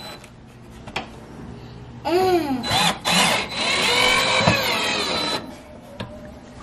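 Power drill run in several short bursts, its motor pitch rising and falling as the trigger is squeezed and eased, from about two seconds in until about five and a half seconds; a few light clicks around it.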